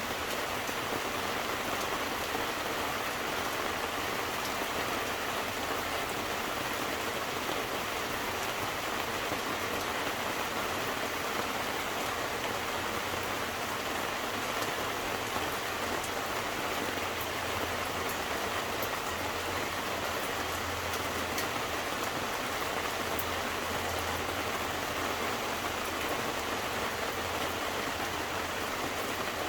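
Steady rain falling, with scattered drops ticking sharply on a nearby surface. A low rumble swells and fades in the second half.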